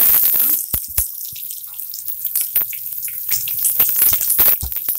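Sliced onions dropped into hot tempering oil sizzle, loud at first and settling after about half a second into a steady sizzle with many sharp crackles.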